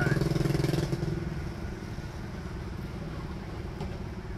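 An engine running with a steady low hum, loudest for about the first second and then settling to a lower, even level.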